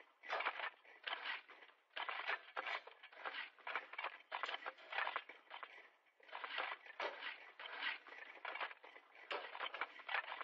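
Shovels digging: blades scraping and biting into the ground in repeated strokes, two or three a second in bursts with short pauses between.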